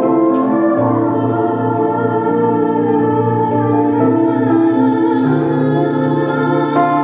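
Live performance of a traditional Sephardic Ladino song by a duo: long held melody notes over a steady pulsing accompaniment and sustained bass notes.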